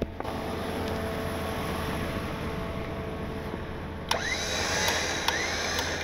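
Truck-mounted electric winch running, drawing in its line with a steady motor hum. About four seconds in the sound grows brighter, with a few sharp clicks.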